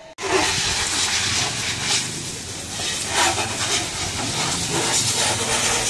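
Water from a garden hose spraying against a motorcycle: a steady hissing splatter that starts abruptly just after the beginning.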